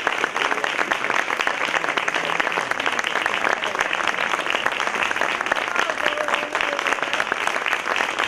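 Theatre audience applauding at a curtain call: many hands clapping in a dense, steady, unbroken applause.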